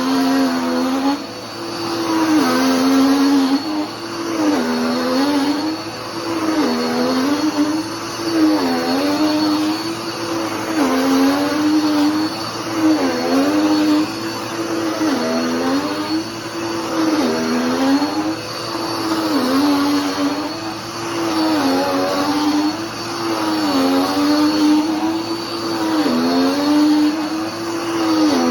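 Dirt Devil PowerMax Pet vacuum cleaner running while vacuuming, with a steady motor hum and a high whine. The motor's pitch dips and recovers in a regular rhythm about every two seconds, as the load on it changes with the strokes.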